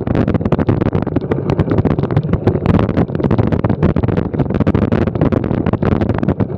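Bicycle riding over cobblestones: a loud, dense, irregular rattle of jolts.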